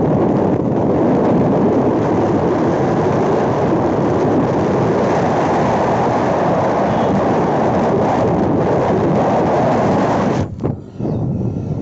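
Wind buffeting a handheld phone's microphone: a steady, loud rumble that cuts out abruptly about ten and a half seconds in.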